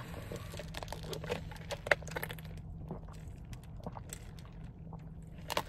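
Drinking through a straw from a plastic cup inside a car: small scattered clicks and soft rustles over a low steady hum.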